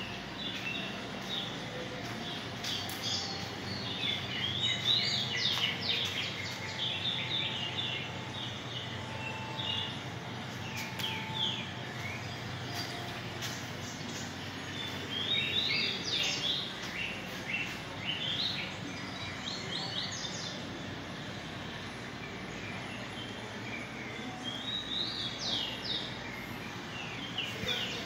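Birds chirping in bursts of quick, high twittering notes, in several clusters, over a steady low hum.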